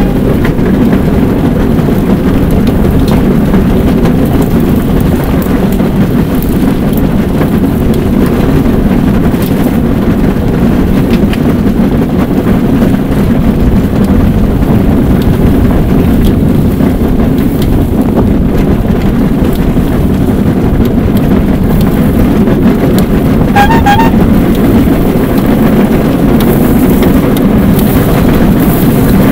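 Rail bike rolling along old, overgrown railway track: a loud, steady rumble and rattle of its running gear on the rails. About 24 seconds in come two short, high beeps.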